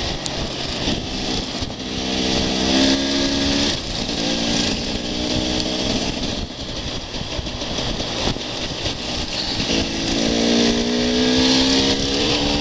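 Enduro dirt bike engine running under way, its pitch climbing under acceleration and dropping back a few times, over a steady hiss of wind and tyres on gravel.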